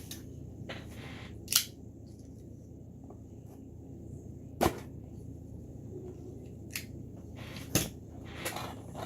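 Sharp clicks and knocks of a cardboard box being handled and opened, with three louder snaps about a second and a half in, midway, and near the end, over a steady low hum.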